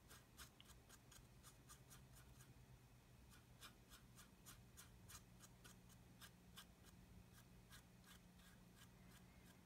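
Faint, quick scratching of a small paintbrush stroked up and down over a plastic model's surface, about four or five strokes a second, to blend streaking grime with a thinner-damp brush.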